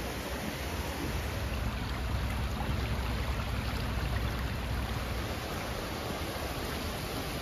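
Shallow mountain stream rushing over a rocky bed: a steady wash of running water, with a low rumble that eases about five seconds in.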